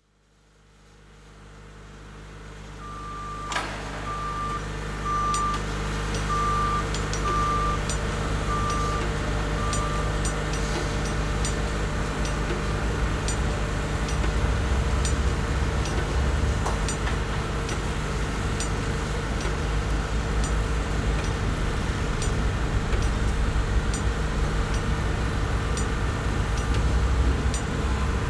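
Steady low vehicle rumble fading in, with a string of about nine evenly spaced high beeps in the first ten seconds, like a reversing alarm.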